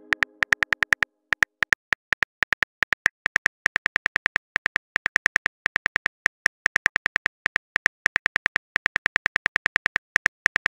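Phone keyboard typing clicks, a rapid run of short, even clicks at about seven a second with a few brief pauses, as a text message is typed out letter by letter.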